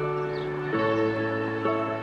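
Background music of held chords over a sustained bass note, moving to a new chord and lower bass note about a third of the way in.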